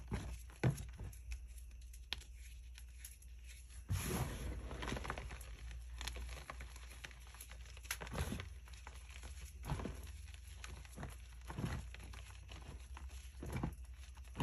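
Hands crushing and raking through crumbled dyed gym chalk powder: soft crunches and pats as lumps give way, coming irregularly about once a second, with a longer rustling stretch about four seconds in.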